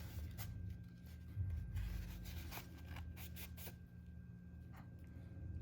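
Faint scratching and small clicks of a pocket multi-tool's blades being handled and worked at the hinge, over a steady low hum.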